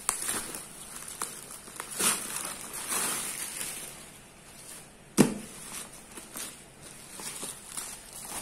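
Bubble-wrap packaging around a boxed microphone set rustling and crinkling as it is handled, with scattered small clicks. A single sharp knock about five seconds in is the loudest sound.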